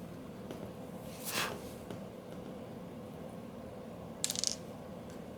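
Small-parts handling during camera reassembly: a brief scrape about a second in, a faint click, then a quick clatter of small sharp clicks near the end, over a steady low hum.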